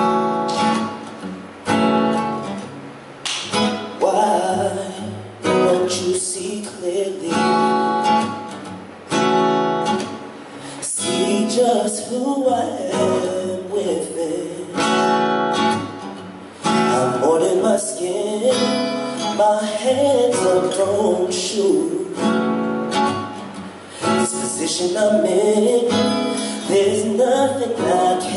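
Acoustic guitar strumming chords, with a voice singing a melody over it without clear words.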